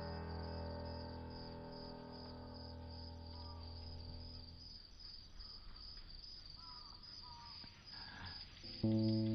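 Crickets chirping in a steady, evenly spaced rhythm, while a held music chord fades out over the first few seconds. Just before the end, a new music chord comes in sharply.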